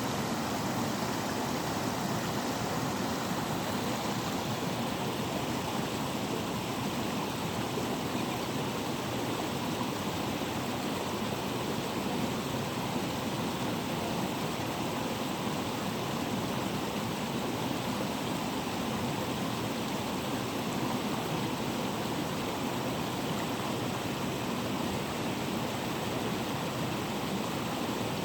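Natural waterfall: water falling and rushing in a steady, unbroken roar.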